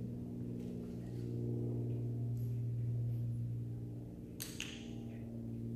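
A single sharp click from a dog-training clicker about four and a half seconds in, over a steady low hum.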